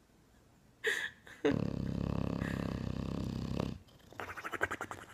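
English bulldog snoring in its sleep: a short snort about a second in, then a loud, rattling snore lasting about two seconds, followed by a quieter fluttering breath.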